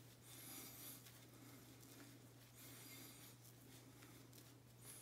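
Edwin Jagger DE89 double-edge safety razor scraping through lathered stubble on the neck: a few faint, scratchy strokes.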